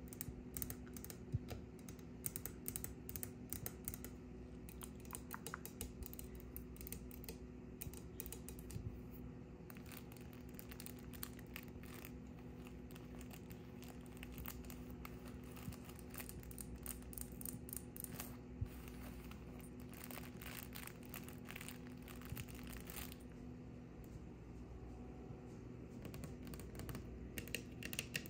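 Long fingernails tapping and scratching rapidly on hard plastic, at first a white stand base, then on a cloth baby book with crinkling, and near the end on a plastic wall outlet plate.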